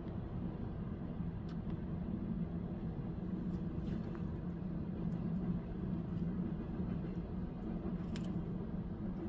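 Steady low rumble of distant city traffic, with a few faint ticks.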